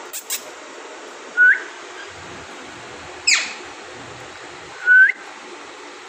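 Pet parrots calling: a short rising whistle, then a sharp screech that sweeps down from very high, then another short rising whistle. There are two short clicks right at the start.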